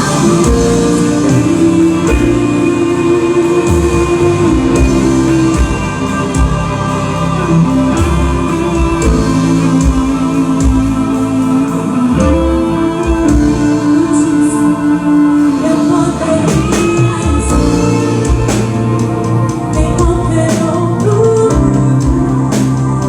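A band playing music with singing: held sung notes over the instruments.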